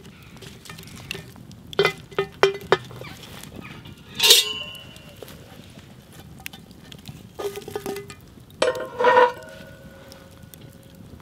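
Cast-iron Dutch oven and its lid being handled with a metal lid lifter: metal clanking on metal. A few sharp clanks about two seconds in, a loud ringing clank around four seconds, and another cluster near the end whose ring carries on for a couple of seconds, over a low crackle of the campfire.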